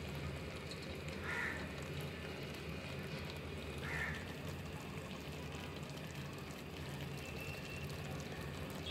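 Faint simmering of beef spleen curry in the pan under a steady low hum, with two short, higher calls about a second and a half and four seconds in.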